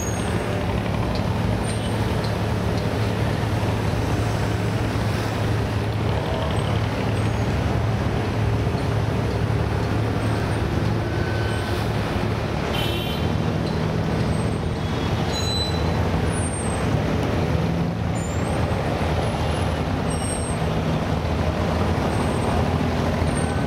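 Inboard diesel engines of abras, wooden water taxis, running steadily at low speed: a constant low drone.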